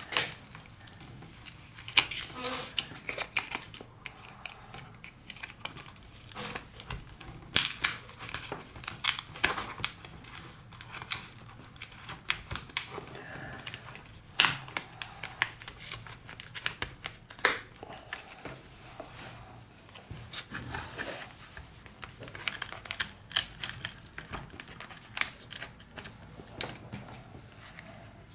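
Adhesive under a cracked tablet touch-screen glass giving way as a playing card is worked beneath it: an irregular run of crackling and sharp clicks, with a few louder snaps.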